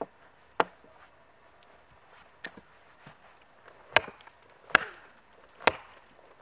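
Small tomahawk chopping into a log on a wooden stump: a series of sharp wooden chops at uneven intervals, a couple of them lighter.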